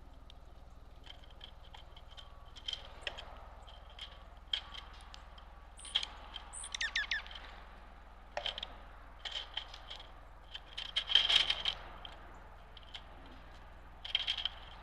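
Small birds at a backyard feeder: scattered short chip notes and clicks, with a quick run of falling notes about seven seconds in and a louder cluster of chips and clicks around eleven seconds.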